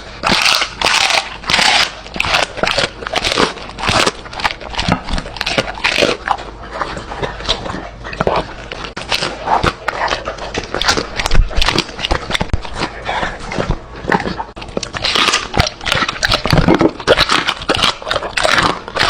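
A dog chewing and eating, a dense run of quick, irregular clicks from its mouth and teeth on the food.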